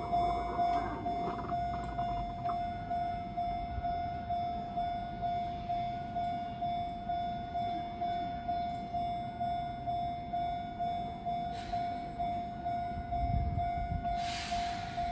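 Japanese railway level-crossing warning alarm ringing in a steady, even, repeating rhythm. Near the end there is a short burst of hiss over some low rumble.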